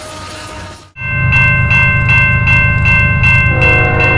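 Railroad grade-crossing bell ringing steadily at about two and a half strikes a second, starting suddenly about a second in, over a low rumble. A lower-pitched sound joins near the end.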